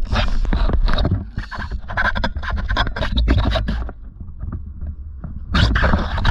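Close scraping and knocking on a fishing kayak, a dense run of sharp clicks and scrapes from gear or catch being handled. It eases off about four seconds in, then picks up again near the end.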